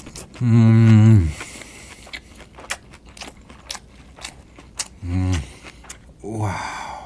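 A man chewing a mouthful of grilled fish with his lips closed, letting out a long, loud, wavering 'mmm' of enjoyment about half a second in and two shorter falling hums near the end, with soft wet mouth clicks from the chewing between them.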